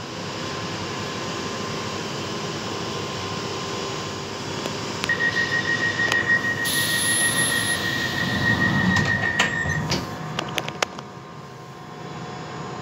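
London Underground Piccadilly line 1973 Stock train running through the tunnel between stations. From about five seconds in, a single high steady wheel squeal is heard for about five seconds, the running noise growing louder. The noise falls away about ten seconds in.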